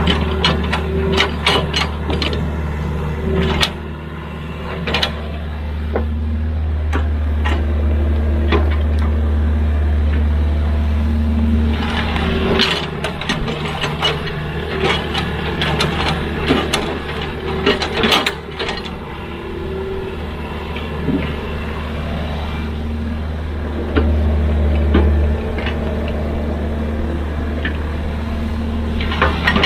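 Excavator's diesel engine running under working load, its low drone swelling for several seconds at a time as the machine works. Frequent short knocks and clatter are heard over it.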